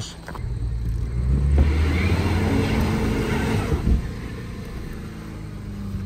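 Car engine revving hard while a car stuck in thick clay mud is pushed out, its wheels spinning and flinging mud. The revving swells over the first few seconds, then drops back to a lower, steady drone.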